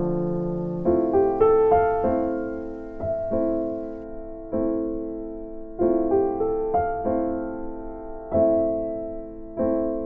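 Background piano music: slow, gentle notes and chords, each struck and left to fade, a new one about every second.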